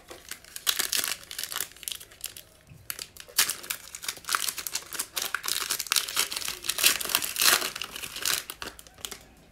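Foil wrapper of an Illusions basketball trading-card pack being torn open and peeled back by hand: a dense run of crinkling and tearing crackles that starts about half a second in and goes on nearly to the end.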